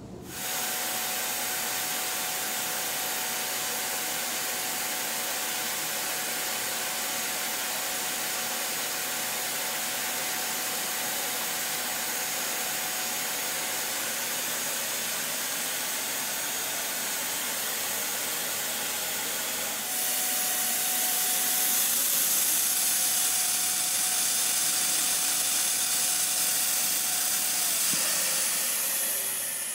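Dyson stick vacuum cleaner running, a steady rushing hiss with a steady whine, pulling vacuum on a restored Stewart vacuum fuel tank during a bench test with water. About twenty seconds in it gets louder and brighter. Near the end it is switched off, and the motor winds down with a falling whine.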